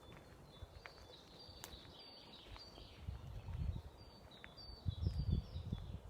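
Small songbirds chirping in short, repeated high notes, with an uneven low rumble that grows louder in the second half.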